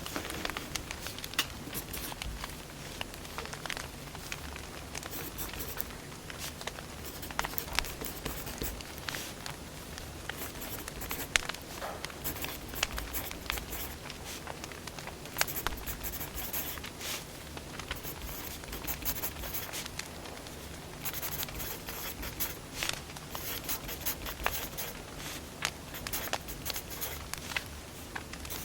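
Wood fire crackling, with irregular sharp pops and snaps over a soft steady hiss.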